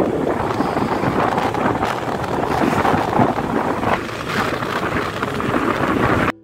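Wind buffeting the microphone on a moving scooter, mixed with the rush of engine and road noise, steady throughout. It cuts off suddenly just before the end.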